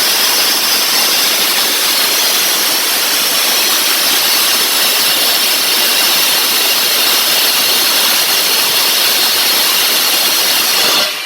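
Backhoe loader turbocharger run on a test with oil fed through it: a loud, steady rushing hiss with a high whine, cutting off suddenly just before the end. The test checks whether the turbo passes oil past its seals.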